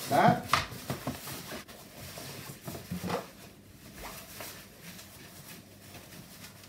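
Fabric rustling and a few small knocks as the textile cover of a Bugaboo Lynx bassinet is stretched and its eyelets are pulled over the plastic pegs of the baseboard. The knocks fall mostly in the first half, and quieter handling follows.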